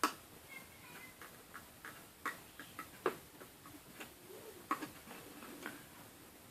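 A dozen or so light, irregular clicks and taps of a loom hook on the pins of a Wonder Loom as rubber bands are lifted forward over them.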